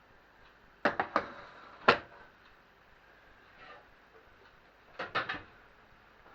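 Sharp clicks and knocks of kitchenware being handled: a few hard clacks about a second in, the loudest just before two seconds, and another quick run of three around five seconds.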